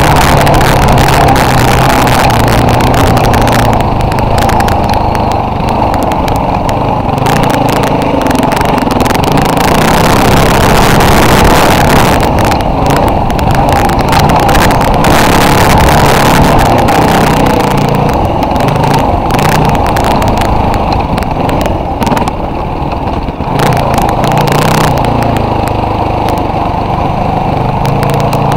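Off-road vehicle engine running as it drives a rough dirt trail, the engine note rising and falling with the throttle under a loud, continuous rumbling noise.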